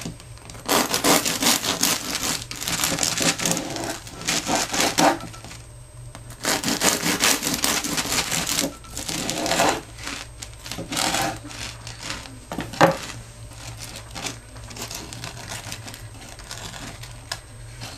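Bread knife sawing back and forth through the crisp crust of a baked loaf on a wooden cutting board, in several bouts of quick strokes. There is a sharp knock about two-thirds through, and quieter handling of the cut slices near the end.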